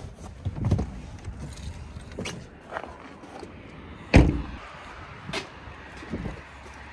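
Pickup truck door being opened and handled, then shut with a heavy thump about four seconds in, followed by a few lighter knocks of footsteps.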